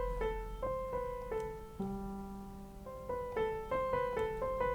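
Sampled acoustic piano from an Ableton Live 11 sound pack, played as a quick run of single notes that each ring on. About two seconds in, a lower note is held for roughly a second before the run picks up again.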